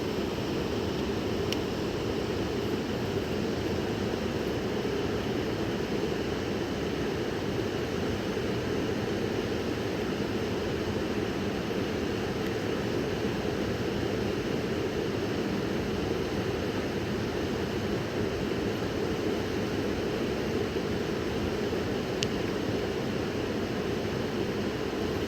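Fast-flowing river water rushing steadily, a continuous even roar with no breaks.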